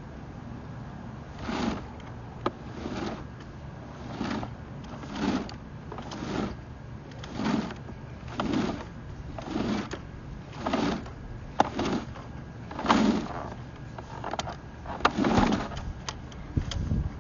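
Sewer inspection camera's push cable being fed by hand into the drain line, making about a dozen rhythmic sliding rasps roughly one a second, with a few sharp clicks among them.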